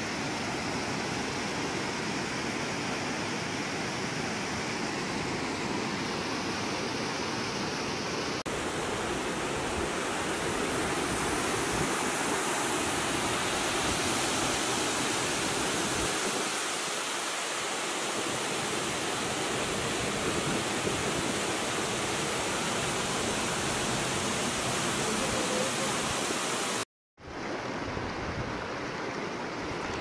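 Steady rush and hiss of falling water from a waterfall and a rocky mountain stream. The sound changes abruptly about eight seconds in and cuts out for a moment near the end.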